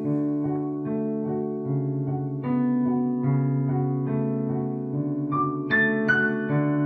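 Piano playing a slow chord progression in D major, sustained chords changing about once a second. Around five seconds in, higher single notes of an improvised melody join from a second, overdubbed piano track.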